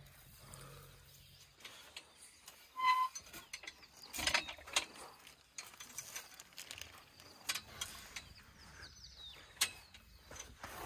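Scattered metallic clicks and clanks of a metal gate latch being worked, with a short squeak about three seconds in and a few faint bird chirps.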